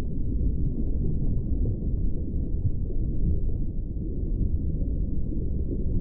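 Underwater ambience: a steady, low rumble of water, with nothing above it.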